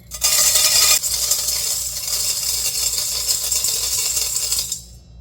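Dry muthokoi (dehulled maize) poured into a metal pressure cooker: a continuous rattling hiss of grains lasting about four and a half seconds, loudest in the first second.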